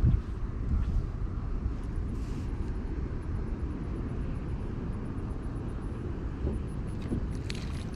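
Low, irregular rumbling outdoor background noise, with a brief knock right at the start.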